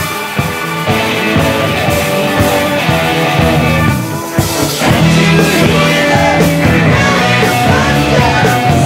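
A 1974 rock band recording playing: full band with guitar. The music dips briefly about four seconds in, then comes back in fuller.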